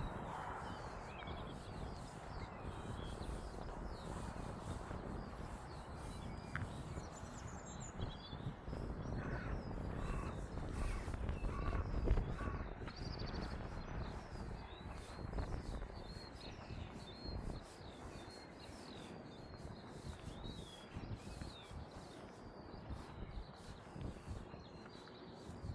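Small birds chirping and twittering in quick, high notes throughout, over a low, steady rumble of outdoor background noise.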